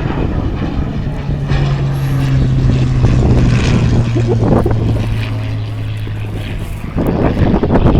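Hawker Hurricane's Rolls-Royce Merlin V12 engine and propeller running in a steady drone, its pitch slowly falling. A louder rushing noise comes in near the end.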